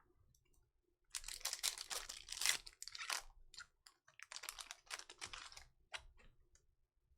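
Trading cards being handled and flipped through: two spells of quick crackly clicking and sliding, the first about a second in and the second around four seconds in, followed by a few single clicks.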